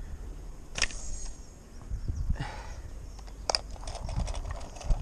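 Handling rustle with two sharp clicks, one about a second in and one about three and a half seconds in, and a brief swish between them. Small ticks and rustling follow near the end.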